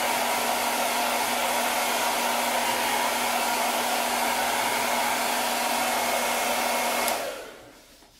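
Handheld hair dryer running steadily, a rush of blown air over a steady motor hum. It is switched off about seven seconds in, and the sound dies away as the motor winds down.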